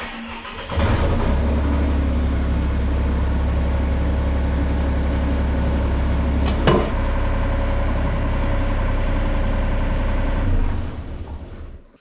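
John Deere 35G mini excavator's three-cylinder diesel engine cranks and catches within the first second, then idles steadily and shuts down about a second before the end. One sharp clunk comes about two thirds of the way in. The engine is run so the air let into the freshly opened auxiliary hydraulic lines bleeds out.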